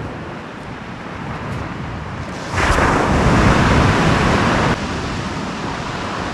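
Sea waves washing on a beach, with wind on the microphone. About two and a half seconds in, a much louder rush of noise lasts about two seconds and then cuts off sharply.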